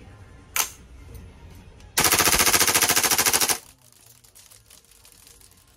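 King Arms Black Rain Ordnance 9mm gas-blowback airsoft carbine, fed from a Tokyo Marui Glock magazine, firing one rapid full-auto burst lasting about a second and a half, starting about two seconds in. A single sharp click comes about half a second in, before the burst.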